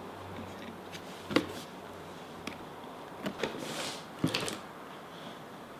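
A few light clicks and knocks of a hard plastic toy cauldron being handled on a table, spaced irregularly about a second apart.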